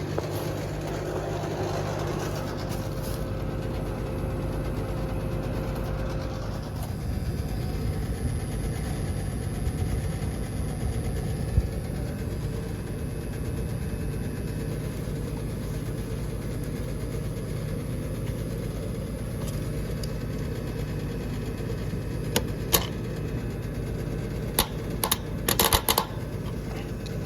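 Outdoor air-conditioning condenser running with a steady mechanical hum of compressor and fan. Several sharp clicks come near the end.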